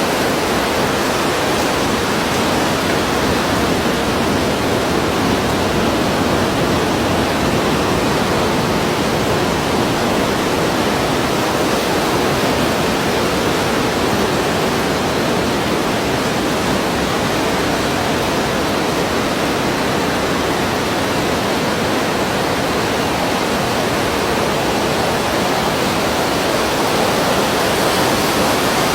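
Ocean waves heard as one continuous, steady wash of surf, with no separate breakers standing out.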